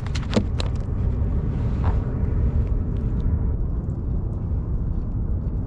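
Steady low wind rumble on the microphone, with a few light clicks from the fish and tackle being handled in the first second or so.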